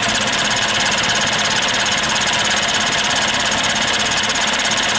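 Trike's aircraft engine being turned over by its electric starter with the ignition held off at the kill switch, so it spins without firing: a steady cranking sound after an oil change.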